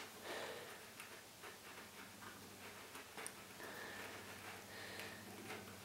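Faint small ticks and clicks of a metal ruler being handled against a block on a workbench, with one sharper click about three seconds in, over a low steady hum.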